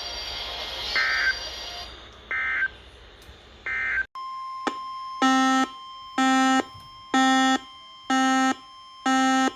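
Three short bursts of EAS SAME digital data, the end-of-message code closing the warning, followed a couple of seconds later by an alert beeper sounding about once a second over a faint steady tone, ahead of the next severe thunderstorm warning. The beeps are the loudest sound.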